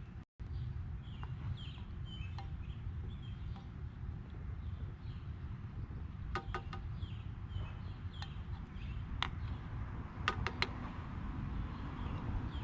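Small birds chirping again and again over a steady low rumble, with a few sharp clicks or clinks around six seconds in, again near nine seconds and around ten seconds.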